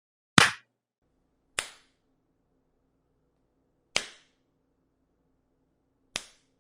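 Four separate sharp slaps, each a single crack that dies away quickly, the first loudest and the last three softer, spaced unevenly over several seconds.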